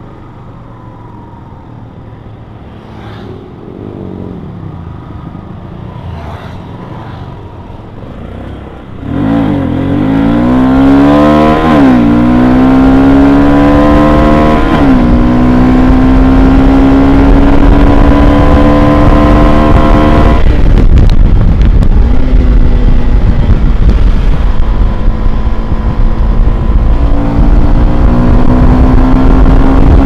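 Yamaha FZ16's 153 cc single-cylinder engine with stock exhaust, running quietly at first and then pulled hard about nine seconds in. The pitch climbs, dips sharply twice as it shifts up, climbs again, and falls off suddenly when the throttle closes, before it settles and rises again near the end.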